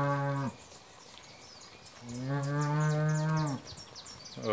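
Cattle mooing: a low moo that ends about half a second in, then a second long, steady moo from about two seconds in.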